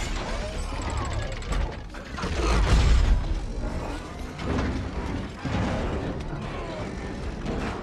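Action-film sound effects: mechanical clanking, ratcheting and whirring from a large machine, over deep rumbles and scattered impacts, with score music underneath.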